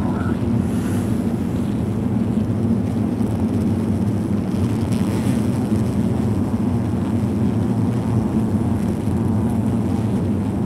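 A honeybee winter cluster heard through a microphone pressed against the hive's upper entrance: a steady, low-pitched roar from tens of thousands of bees flexing their flight muscles to generate heat.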